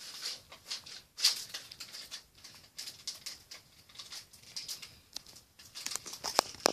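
Marker tip tapping and scratching on a whiteboard in quick, irregular short strokes as small button dots are drawn, with a couple of sharper clicks near the end.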